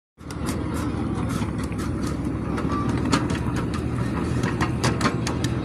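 Ride-on miniature railway train running along its track: a steady low rumble with irregular clicks and knocks.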